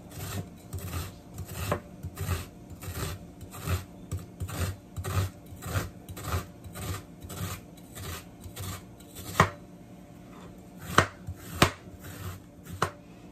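Chef's knife chopping a red onion on a wooden cutting board: steady knife strokes knocking on the board about two a second. After a brief lull about ten seconds in come a few sharper, louder knocks.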